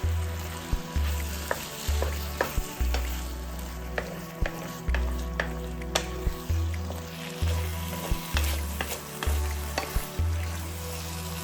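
Food sizzling in a frying pan as it is stirred, with a utensil clicking and knocking against the pan at irregular moments. Background music with a steady repeating bass runs underneath.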